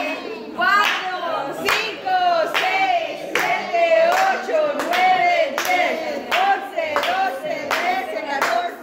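A group of people singing a birthday song together, clapping along in a steady beat.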